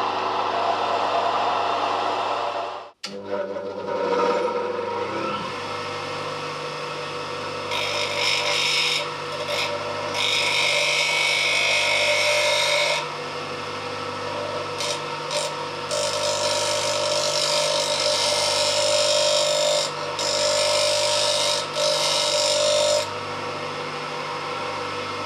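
Lathe motor running steadily while a tool is held against the spinning handle blank, in several stretches of a few seconds each; the sound drops out suddenly for a moment about three seconds in.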